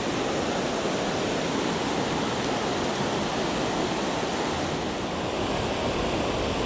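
Steady, even rush of water pouring over a dam.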